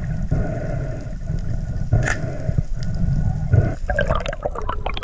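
Underwater noise picked up by a camera in its housing: a steady low rumble of water with faint steady tones. A single sharp click comes about two seconds in, and crackling, bubbling sounds start near the end.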